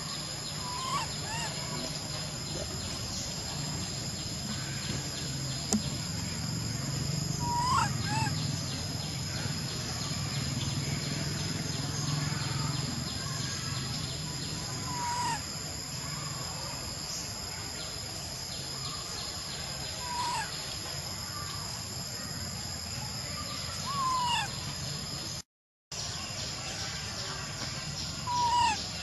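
Steady high-pitched insect drone, with short squeaky calls about six times, each a quick bending note.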